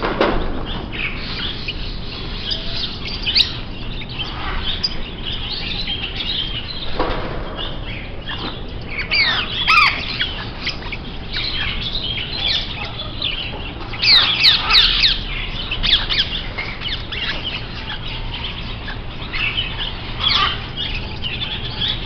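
Many caged small birds, finches and parakeets, chirping and calling over one another in a steady chatter of short high notes. There are louder bursts of quick sweeping calls about halfway through and again a few seconds later.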